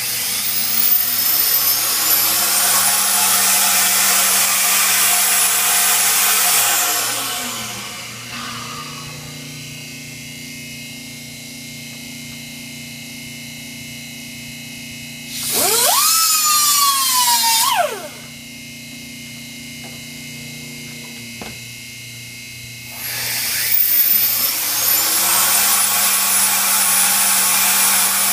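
KKK K26 turbocharger rotor spun up by air on a high-speed VSR balancing machine: a rising whine with rushing air climbs to a high steady pitch, then winds down after about seven seconds. Midway a small hand tool runs for about two seconds at the opened compressor end, and near the end the rotor is spun up again to the same high whine.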